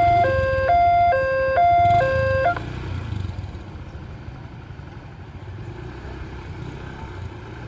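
Railway level-crossing warning alarm: a fast electronic two-tone chime, its two pitches alternating about twice a second, cutting off suddenly about two and a half seconds in as the crossing clears. After it, motorcycle engines run quietly as the bikes cross the tracks.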